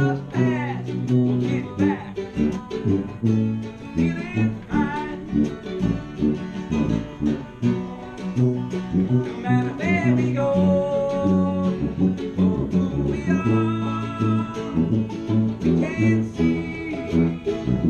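Small acoustic band playing live: an acoustic guitar strumming and a tuba holding the bass notes, with a melody line sliding in pitch above them.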